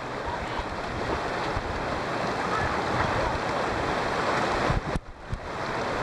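Shallow stream rushing over rocks, with wind buffeting the microphone. The noise drops suddenly about five seconds in.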